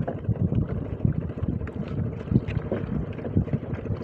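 Wind buffeting the microphone in uneven gusts, over water lapping at a small wooden fishing boat on the open sea.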